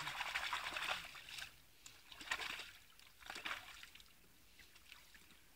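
Mud and muddy water squelching and sloshing in three bursts, the first about a second long, as a dirt bike stuck in a bog is worked free by hand.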